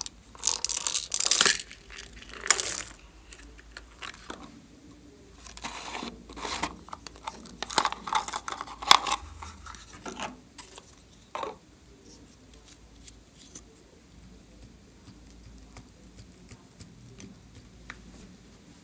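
Close-up crinkling and tearing handling noises of plastic containers and slime toppings, in several bursts over the first dozen seconds with a couple of sharper clicks, then only faint rustling.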